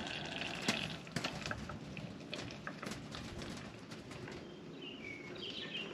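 Small clicks and creaks as a plastic plunger press is pushed slowly down by hand, with a short faint high chirp near the end.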